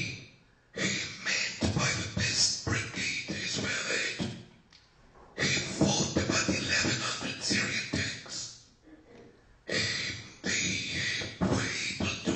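A person's voice in three stretches a few seconds long, with pauses of about a second between them.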